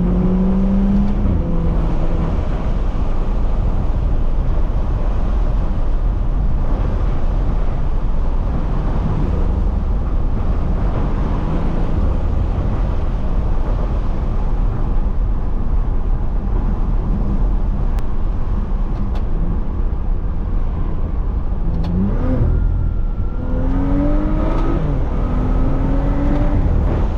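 Stage 2 tuned, catless BMW 335i turbocharged inline-six driving along, with steady engine and road noise. The engine note rises as the car accelerates right at the start, and again in a few short pulls near the end.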